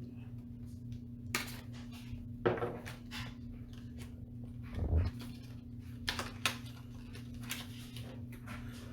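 Scattered small clicks, taps and rustles of computer parts and packaging being handled, over a steady low electrical hum.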